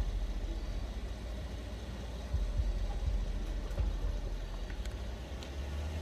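Rolls-Royce Dawn creeping along at low speed: a low, steady rumble with uneven swells, and a couple of faint ticks near the end.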